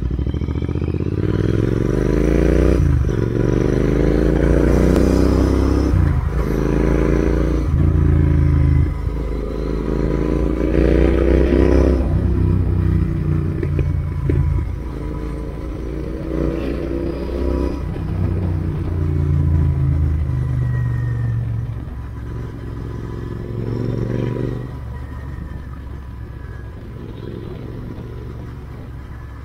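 Royal Enfield Interceptor 650's parallel-twin engine accelerating up through the gears, its pitch climbing and then dropping sharply at each shift, several times over. In the last third it runs quieter and steadier at lower revs.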